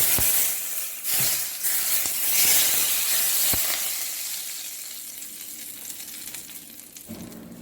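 Extremely hot vegetable oil poured over roasted eggplant, garlic, hot peppers and onions, sizzling and hissing, loudest at first and dying down slowly, with a few light knocks of the pot.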